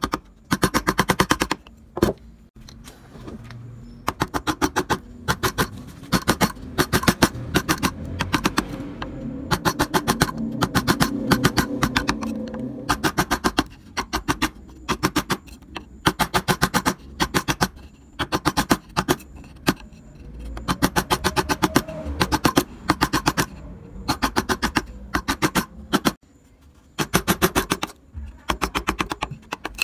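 Rapid tapping of a mallet on a woodcarving gouge as it cuts into the wood, in quick runs of about a second separated by short pauses.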